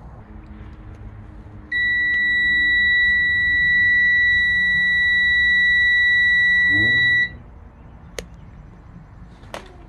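Digital multimeter's continuity beeper sounding one steady high tone for about five and a half seconds, starting about two seconds in, as its probes read a low resistance across a curtain airbag's igniter circuit: the meter is showing continuity. A single sharp click follows about a second after the tone stops.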